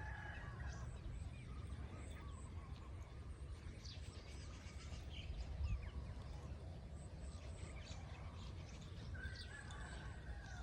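Quiet outdoor ambience: a low steady rumble with faint bird chirps now and then.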